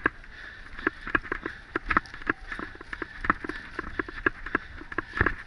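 Mountain bike rattling and jolting over a rough forest trail, with irregular clicks and knocks several times a second over a low rumble.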